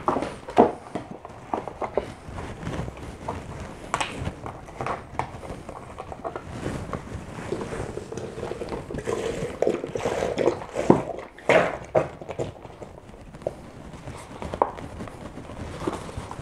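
Irregular clicks and knocks of a milk carton, glass and other items being handled on a stainless steel counter, with milk poured into a large glass of chocolate milkshake about halfway through.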